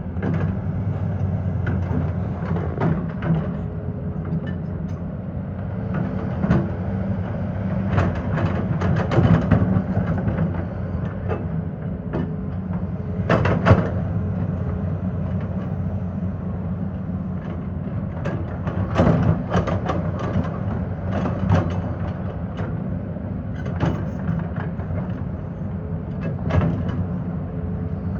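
Excavator's diesel engine running steadily under load, with irregular knocks, clatter and scraping as the bucket works rock and soil; the sharpest crack comes about halfway through.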